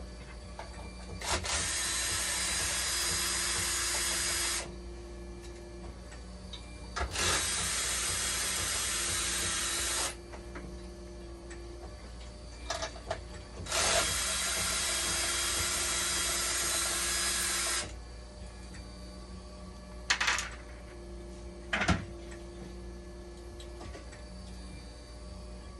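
Handheld power drill/driver run in three long bursts of three to four seconds each, with a few sharp clicks in between, over a steady machine hum.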